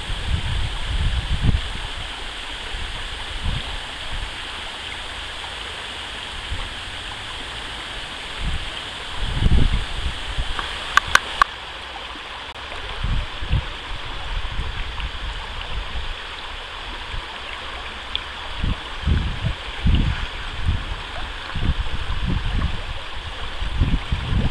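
Shallow stream flowing steadily, with irregular low rumbling gusts coming and going. Three quick sharp clicks about eleven seconds in.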